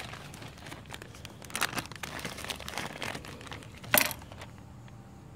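Plastic bag crinkling and rustling as it is handled, with one sharp knock about four seconds in, after which the rustling dies down.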